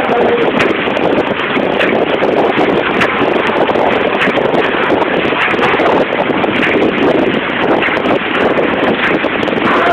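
Horizontal pouch packing machine running, a steady, dense mechanical clatter and rattle as its conveyor carries film-wrapped khari biscuits through.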